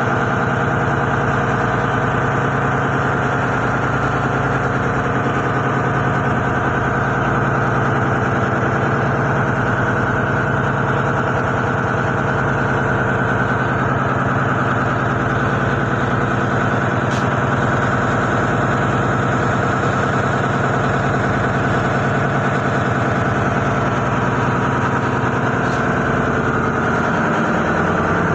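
A motor running steadily with an even, unchanging hum, like an engine at idle.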